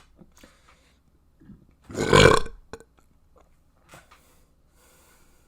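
A person's loud, deep burp, a single one lasting about half a second, about two seconds in.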